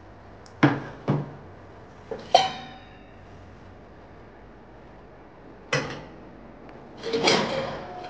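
Stainless steel pots and pans knocking against each other and the dishwasher rack as they are handled: a few separate clanks in the first half, one of them ringing briefly, and a longer clatter near the end.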